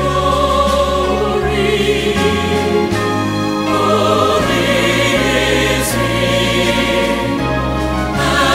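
Choir singing a sacred song, holding notes with vibrato over a low bass line that moves to a new note every second or so.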